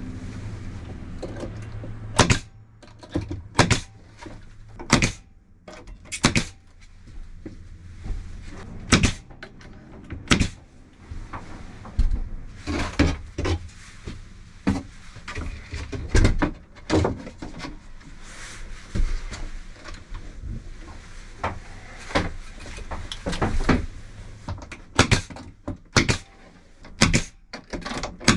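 Sharp knocks and clatters of ceiling panels being fitted and locked into place in a camper, some coming about a second apart, with quieter rustling and handling between them.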